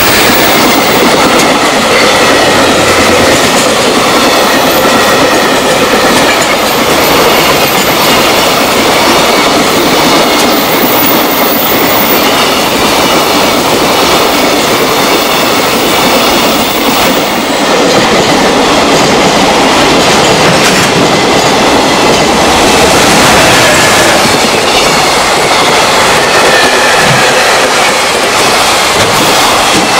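Long container freight train's flat wagons passing at speed, a loud, steady rush of steel wheels on rail.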